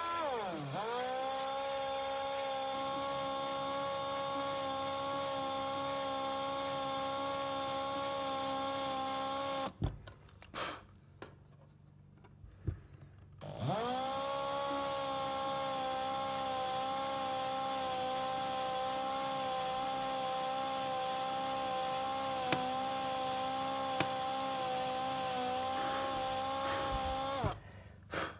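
Electric drill boring slowly through thin metal with a thin bit. The motor whine spins up and runs steadily for about ten seconds, stops, then after a short pause with a few light knocks spins up again and runs for about fourteen seconds more.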